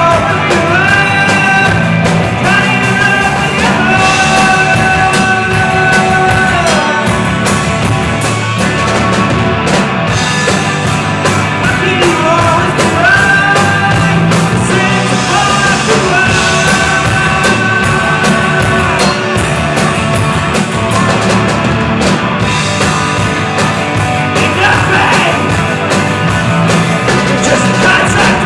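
Live rock band playing loud: electric guitar, bass guitar and drums, with long held melody notes that slide into pitch.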